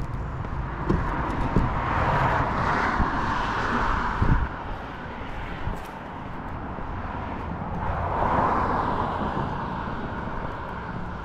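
Road traffic: two vehicles pass one after the other over a low steady rumble. Their tyre and engine noise swells and fades, the first about two seconds in and the second near eight seconds.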